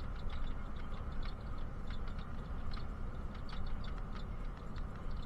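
Inside a bus: a steady low engine and road rumble with irregular light clicks and ticks, several a second, from rattles in the cabin.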